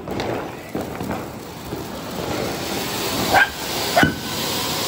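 Ground fountain firecrackers (anar) hissing steadily as they spray sparks, the hiss swelling over the first two seconds. Two short, loud yelps cut through it about three and a half and four seconds in.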